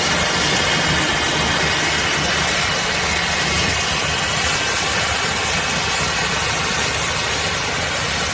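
Several tractor diesel engines running together under heavy load, a steady dense engine drone, as the chained tractors tow a semi-trailer truck bogged in soft mud.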